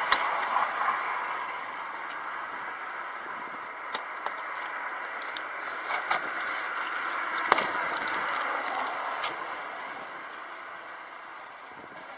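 Hamburger vending machine being worked: scattered sharp clicks and a rattle as its selection button is pressed and the mechanism operates. A steady outdoor background noise runs underneath.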